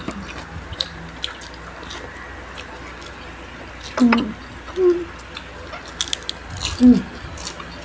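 Close-miked eating sounds: crispy fried lumpia and chicken skin being bitten and chewed, with scattered crunches and wet mouth clicks. A few brief hums from the eaters break in about four, five and seven seconds in.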